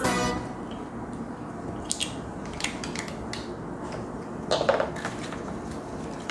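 Small plastic toy pieces and wrappers being handled: crinkling and light clicks of plastic, with a brief denser rustle about four and a half seconds in.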